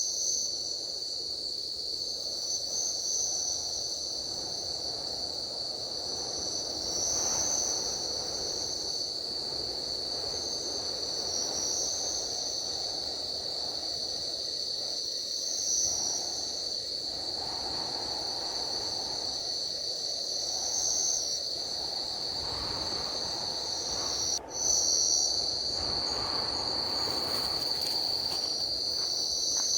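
Tropical forest insect chorus: a steady high-pitched buzz with a higher trill pulsing about every two seconds, over an even low rushing background. The sound drops out for a split second about three-quarters of the way through.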